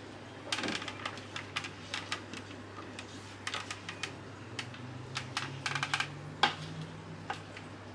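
A table knife and a plastic spatula scraping and tapping against the inside of a clear plastic jug of ricotta filling, a run of quick clicks and scrapes in clusters, with one sharper knock near the end.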